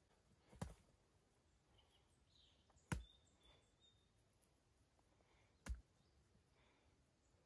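Three sharp single knocks, about two and a half seconds apart, of stones being set down on a stone-and-mud fireplace, over near silence.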